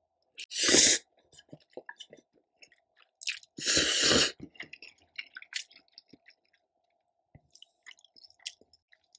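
Close-miked eating of black bean noodles and kimchi: wet chewing clicks and smacks, with two loud sucking slurps, about half a second in and again about three and a half seconds in.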